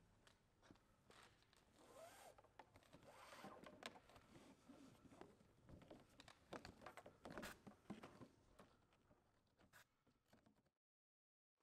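Faint handling noises as a steering line and plastic protective hose are pulled through fittings on an inflatable kayak: rustling and scraping with small clicks and brief squeaks. The sound cuts to dead silence near the end.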